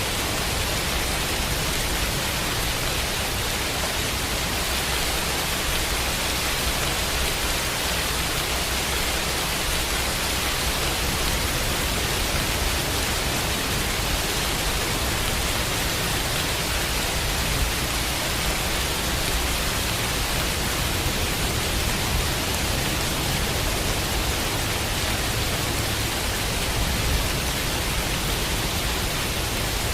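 Steady rain, a dense, even hiss with a steady low rumble underneath.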